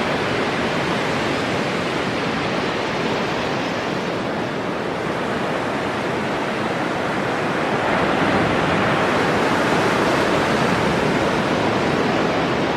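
Ocean surf breaking continuously on a sandy beach, an even roar of waves that swells a little in the second half.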